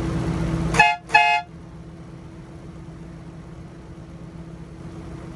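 Dual aftermarket train horns on a Nissan Skyline R32 give two short toots about a second in, each sounding two notes at once, over the running engine. The horn is kind of obnoxious but nothing too loud.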